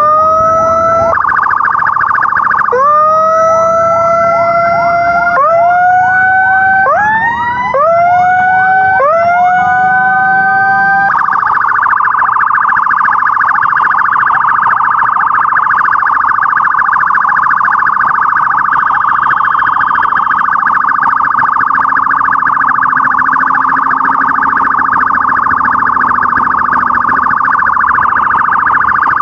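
Loud electronic emergency siren: a run of whoops, each rising in pitch, then about eleven seconds in it switches to a fast warble held at one pitch.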